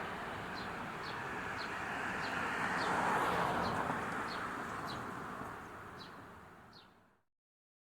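Electric train's running noise swelling to a peak about three seconds in and then fading away, over short high chirps that repeat irregularly about every half second. The sound fades out to nothing about seven seconds in.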